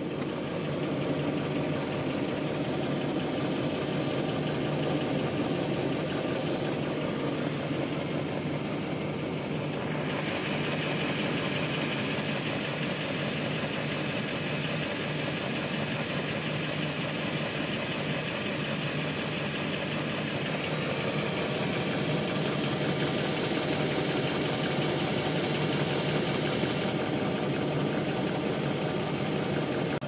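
BMW M62B44TU 4.4-litre V8 idling steadily, heard from outside at the front wheel arches, where its timing-chain rattle is checked for. The sound turns brighter about ten seconds in and duller again near the end.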